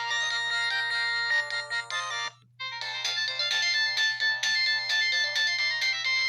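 LG W3000 mobile phone ringtones playing, bright chiming electronic melodies. One melody stops a little over two seconds in, and after a short gap a different, busier one begins.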